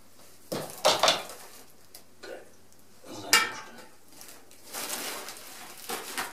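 Plastic-bagged electric-bike kit parts being handled and lifted out of a cardboard box: a series of short rustles of plastic wrapping and light clinks of hard parts knocking together, the sharpest a little past the middle, with a longer rustle of plastic near the end.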